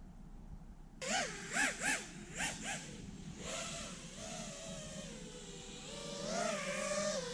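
Brushless motors and propellers of a 5-inch FPV quadcopter whining: quieter for about a second, then several quick throttle punches, each a sharp rise and fall in pitch, followed by a steadier whine that drifts up and down with the throttle.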